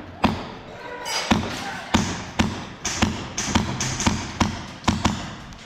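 Airsoft gun shots: a dozen or so sharp cracks fired singly at an irregular pace, each with an echoing tail in a large indoor space.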